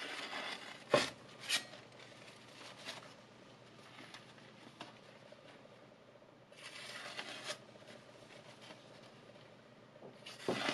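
Freshly sharpened chef's knife slicing through a thin paper napkin to test the edge: paper rustling and crackling in three short spells, at the start, in the middle and near the end, with two sharp crackles about a second in.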